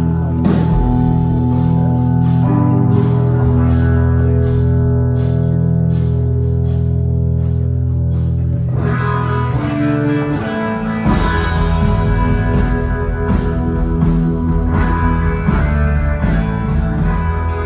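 Live band playing the instrumental opening of a blues-rock song, with guitars over a steady bass line, recorded from the audience. The playing grows fuller about nine seconds in.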